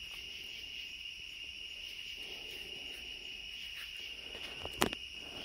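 Crickets chirping in a steady, continuous high-pitched chorus, with a single sharp click near the end.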